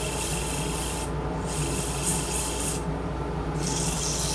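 Sandpaper held by hand against a wooden turkey call blank spinning on a lathe: a hissing rub that breaks off twice as the paper is lifted and put back. Under it runs a steady low machine hum.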